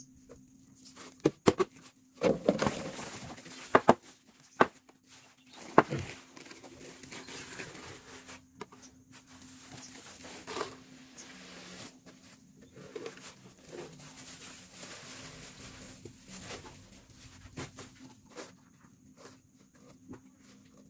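Mealworms and their frass being handled in a plastic scoop and a wooden rearing tray: dry rustling and pattering as they are poured and sifted, loudest as a pour about two seconds in. Several sharp knocks of plastic against wood or plastic come in the first six seconds.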